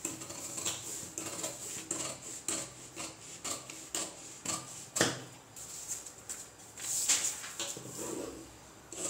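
Scissors cutting through folded paper: a run of short crisp snips, about two to three a second, with one louder snip about five seconds in.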